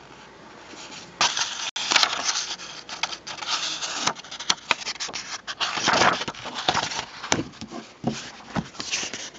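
Pages of an old printed book being leafed through by hand: irregular paper rustling and flapping with sharp flicks, starting about a second in.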